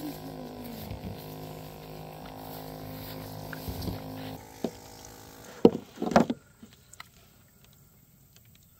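A steady mechanical drone, like a motor running, holds an even pitch and stops about four and a half seconds in. Then come two loud knocks about half a second apart, and after them only faint sound.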